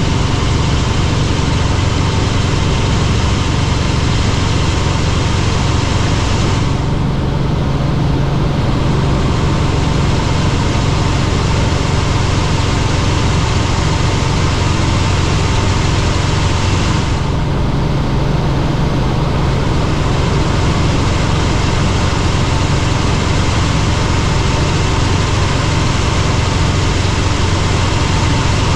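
Helicopter in flight: the steady, loud drone of its engine and rotor, with strong low hum bands under a constant hiss. The hiss briefly thins out twice, about a quarter and about three fifths of the way through.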